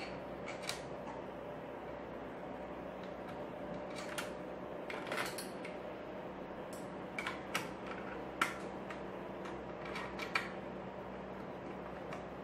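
Irregular small clicks and taps of the cooler's metal backplate screws and nuts being handled and threaded on, about ten in all, over a steady background hum.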